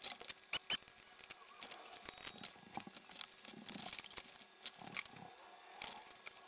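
Scattered light clicks and taps of hands handling a vintage stereo receiver's metal chassis and circuit board.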